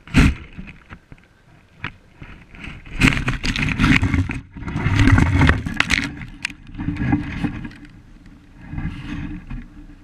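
Leafy branches brushing and scraping hard against a camera lodged in the tree's foliage as the tree moves, with a sharp knock at the start and a run of loud rustling crashes in the middle.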